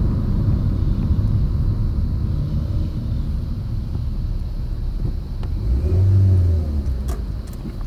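Scion xA engine and road noise heard from inside the cabin while driving, with a whistle from a turbo-whistle device put in the exhaust. The engine swells louder about six seconds in.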